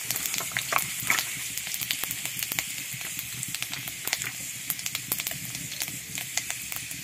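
Whole spice seeds frying in hot oil in an iron kadai: a steady sizzle full of quick sharp pops and crackles, easing slightly toward the end.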